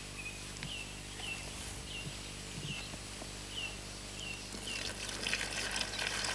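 A bird calling with a series of short, high chirps, then water poured from a plastic bucket into a plastic basin, starting about five seconds in, to wet the groundbait.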